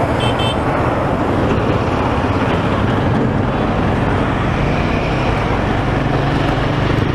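Wind rushing over the microphone of a moving motorcycle, with the Royal Enfield Himalayan 450's single-cylinder engine running underneath as the bike picks up speed.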